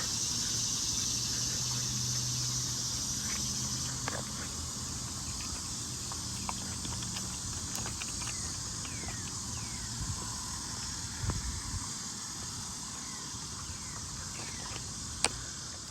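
Cicadas buzzing steadily in chorus, gradually getting quieter, with a few short falling chirps in the middle and a single sharp click near the end.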